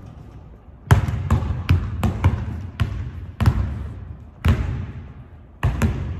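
Basketball dribbled on a hardwood gym floor: about nine bounces at an uneven pace, each ringing on in the echo of the large hall.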